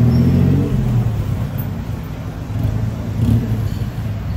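Road traffic: a motor vehicle engine running, loudest in the first second and again briefly about three seconds in.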